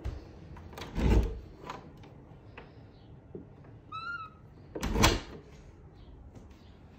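A closet door being handled by its knob: a solid knock about a second in as it shuts, a short high squeak near four seconds, and a second knock or rattle a little before five seconds.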